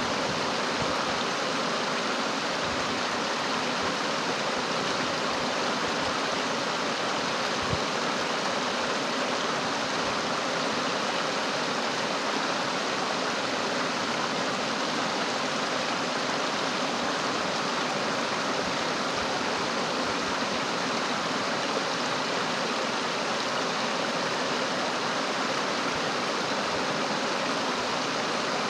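Fast-flowing water rushing steadily, high and swollen after heavy rain.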